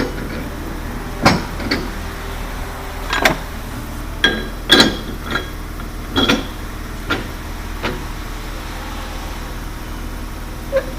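Metal clanks and taps from tire-shop work, about ten sharp knocks spread unevenly over the stretch, several ringing briefly like struck metal, over a steady low machine hum.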